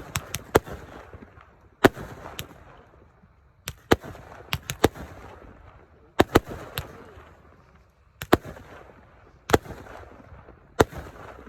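Fireworks going off: a run of sharp bangs, often two or three in quick succession, each trailing off in a crackling haze and echo.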